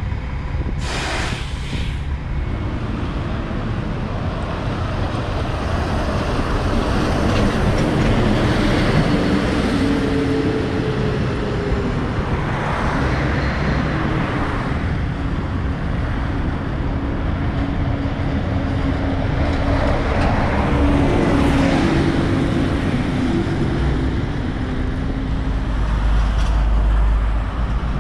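Street traffic on a city bus corridor: diesel buses and cars running past with steady road and tyre noise. The engine sound swells twice as vehicles go by, and there is a short hiss about a second in.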